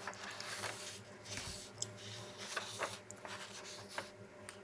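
Paper rustling and scratching with several light clicks and taps, over a faint steady low hum.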